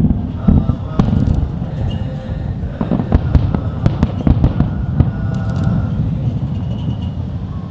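Fireworks bursting overhead: a quick run of sharp bangs over deep rumbling booms, thickest from about three to five seconds in, then easing off.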